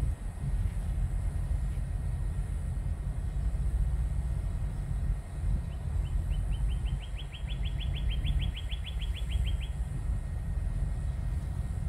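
A steady low outdoor rumble, with a small bird's rapid trill of short, high notes that rises slightly in pitch, then holds level for about four seconds in the middle.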